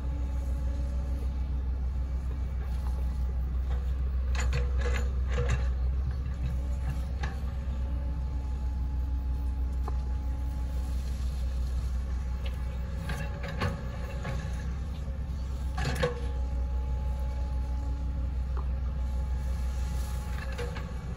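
Hitachi Zaxis 110 excavator's diesel engine running steadily under digging load, with a low drone. A few sharp knocks from the working bucket and arm come about five seconds in, and again at about thirteen and sixteen seconds.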